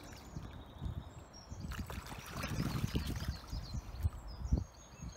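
Water splashing and sloshing as a large hooked fish thrashes at the surface close to the bank: irregular splashes, heaviest from about two seconds in, with a last sharp one near the end.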